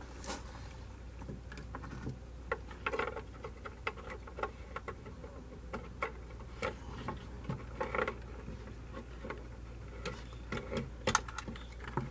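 Hands working at a truck's door: scattered light clicks, taps and rustles of plastic door trim and wiring while a tow mirror is fitted, over a faint low hum.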